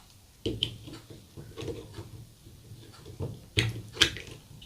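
Several separate knocks and clicks of kitchen containers being handled while the drink ingredients are prepared, the two loudest close together near the end.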